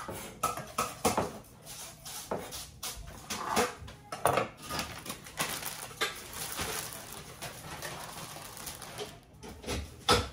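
Irregular kitchen handling noises: knocks of a knife and hands on a wooden cutting board, and a plastic produce bag crinkling as a bunch of cilantro is pulled out of it.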